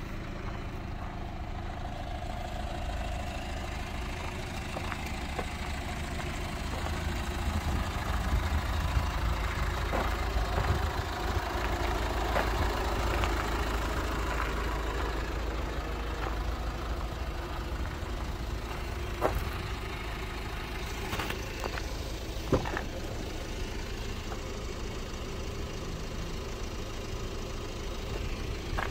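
Hyundai Tucson ix35 engine idling steadily under a low rumble, with a few short sharp clicks along the way.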